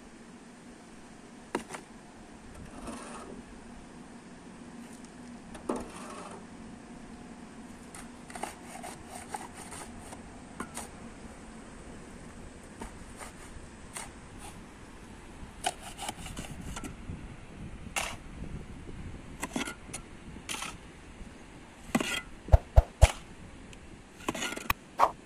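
Shovel digging into stony dirt and tipping it into a steel wheelbarrow: scattered scrapes and knocks, the sharpest near the end.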